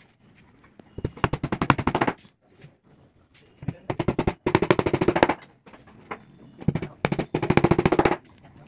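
Small hammer tapping rapidly on particle board, driving in small nails, in several quick runs of taps, each lasting up to about a second.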